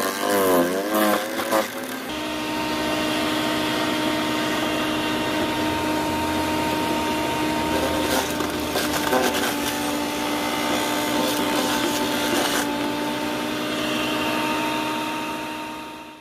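Electric garden branch shredder running with a steady motor whine while leafy branches are fed in and pushed down. Crunching and crackling come through as the cutter chews the wood, busiest around the middle.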